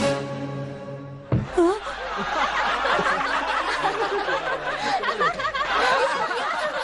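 A short music cue with held notes dies away, and a sharp thump sounds about a second in. Then a crowd of many people laugh and giggle together.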